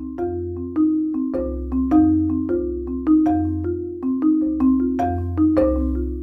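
Background music: a melody of short struck notes, several a second, over a low bass line.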